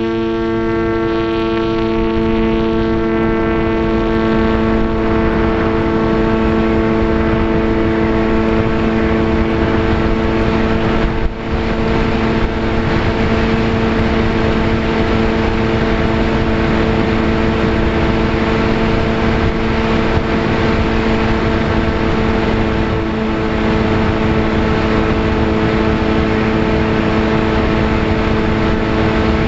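VAS Chimera FPV plane's electric motor and propeller running at a steady pitch, with wind rushing over the airframe. The drone holds one tone throughout, with a brief dip about eleven seconds in.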